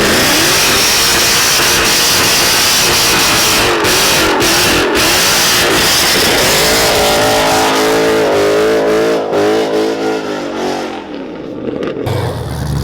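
A Mustang's engine revving hard at high rpm under a dense rush of tyre and exhaust noise, its pitch wavering up and down, clearest past the middle; the sound changes abruptly near the end.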